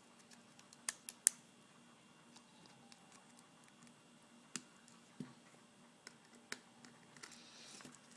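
Small screwdriver clicking and ticking against the tiny screws of a mobile phone's case as they are backed out, with faint handling in between. The sharpest clicks come as three in quick succession about a second in, with scattered single ticks later.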